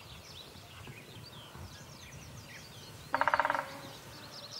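Faint chorus of songbirds with quick, repeated down-slurred chirps. About three seconds in, a short, louder buzzing sound lasts around half a second.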